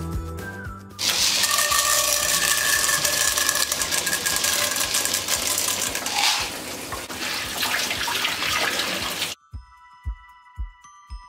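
Popcorn kernels poured into hot oil in a non-stick kadhai: a loud sizzling hiss with the rattle of falling kernels, which cuts off abruptly about nine seconds in. After that come a few soft knocks of a wooden spatula stirring the kernels, over light chiming background music.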